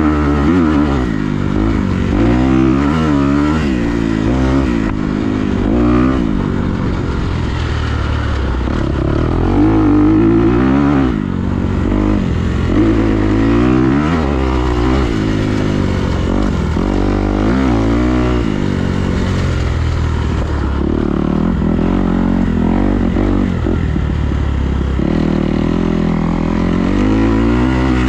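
Engine running, its pitch rising and falling again and again as it revs up and eases off, over a steady low drone.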